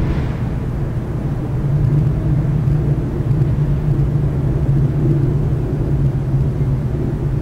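Steady low rumble with a constant drone, unchanging throughout.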